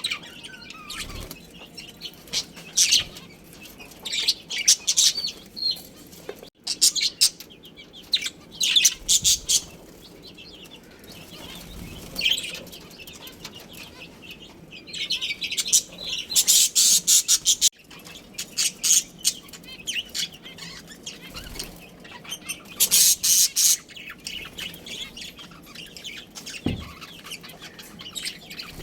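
Budgerigars chirping and chattering in bouts of quick high twitters, loudest in two stretches a little past the middle and again later on.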